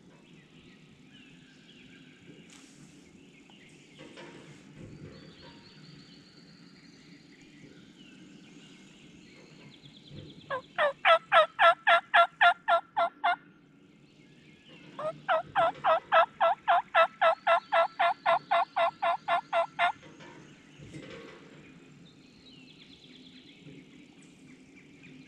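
Turkey call sounding raspy hen yelps: two runs of loud, evenly paced notes, about four a second, the first of about a dozen notes and the second, after a short pause, of about twenty.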